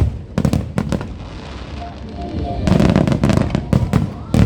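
Fireworks going off: a few sharp bangs in the first second, then a dense, rapid string of reports in the second half, the loudest just before the end.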